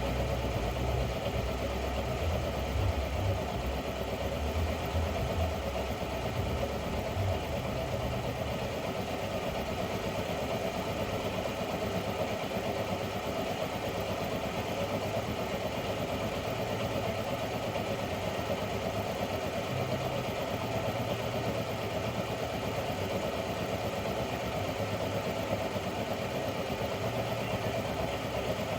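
Hot-air plastic welder running steadily, its air compressor feeding air through the heater to melt plastic filler rod into the bumper.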